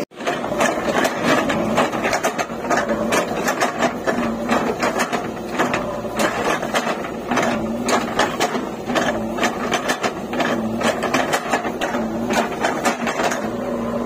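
JCB 3DX backhoe loader working its backhoe: the diesel engine runs under load with a fast, irregular metallic clatter and a hum that comes and goes every second or so.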